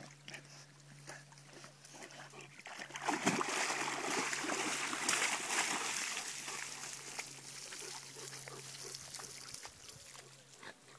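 Leonberger dogs splashing through shallow water as they wade out of a pond onto the bank. The splashing starts about three seconds in, is loudest for a few seconds, then slowly fades.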